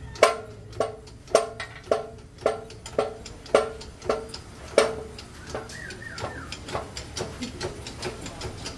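Hammer blows on metal, about nine strikes at roughly two a second, each ringing briefly, as a motorcycle engine's crankcase is knocked to split its halves apart. The strikes stop about five seconds in, leaving lighter clicks and a few short squeaks.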